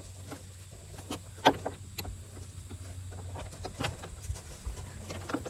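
Scattered metal clicks and clinks of hand tools and a bolt being worked on an engine torque mount, with one sharp knock about a second and a half in.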